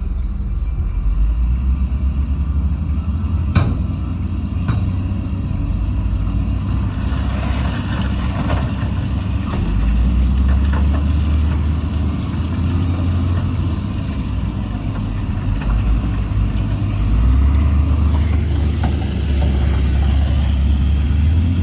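Heavy diesel engine of earthmoving machinery running under load, its low rumble swelling twice. A sharp metallic clank about three and a half seconds in, and a hiss for several seconds after that.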